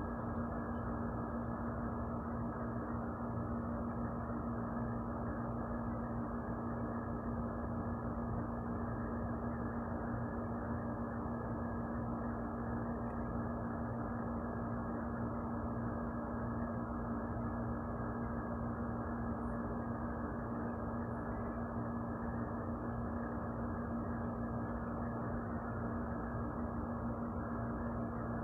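A steady mechanical hum with a constant low drone, unchanging throughout.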